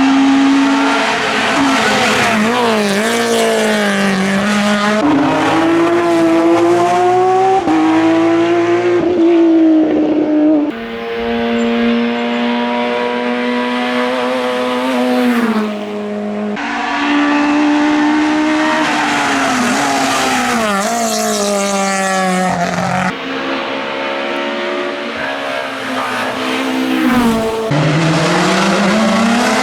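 Hillclimb race car engines at high revs, several cars in turn, the pitch climbing and dropping again and again as they accelerate and shift through the gears.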